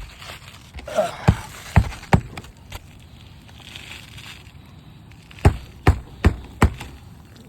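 Sharp knocks of hand work on a brittle asphalt shingle roof during a shingle repair: a few scattered strikes early, then four quick strikes near the end. Faint gritty rustling between them, from granules shedding off the aged shingles.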